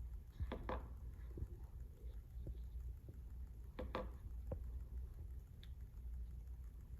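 Light clicks and taps of air hammer parts being handled and taken apart, with two sharper double clicks about half a second and four seconds in, over a low steady hum.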